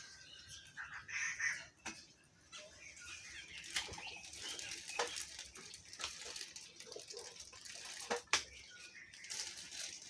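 Mixed flock of plum-headed and slaty-headed parakeets, red junglefowl and oriental turtle doves feeding on the ground: wings fluttering, a few sharp clicks, and a short call about a second in.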